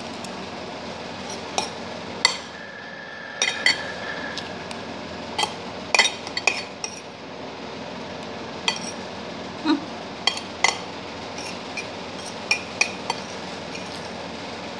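Metal spoon and fork clinking and scraping against a plate while eating, in irregular sharp clicks, over a steady background noise.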